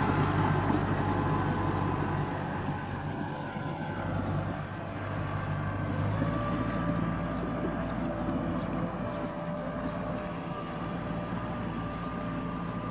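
Diesel farm tractor engine running steadily as it pulls a rear rotary tiller through wet paddy mud, fading slowly as the tractor moves away. The low engine note shifts about six seconds in.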